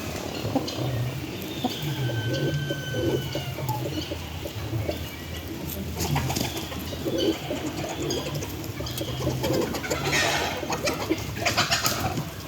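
Hens dust bathing: repeated low, soft calls, with scratchy rustling of dirt and wing shuffling, heaviest in the second half.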